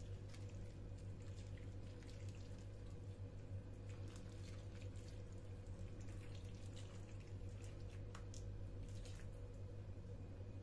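Thin tomato-paste sauce poured from a glass cup over meatballs and potato wedges in a glass baking dish: a faint liquid trickle with scattered soft drips and splashes, over a steady low hum.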